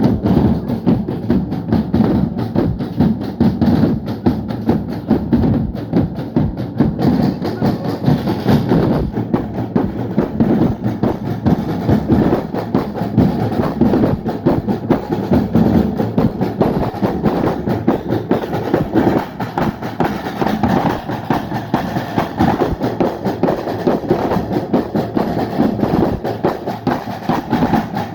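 A drumming band playing, many drums beating a fast, dense rhythm without a pause.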